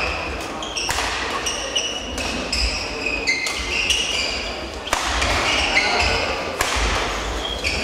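Badminton play heard across a sports hall: short, high squeaks of court shoes on the floor, mixed with sharp racket-on-shuttlecock hits and footfalls.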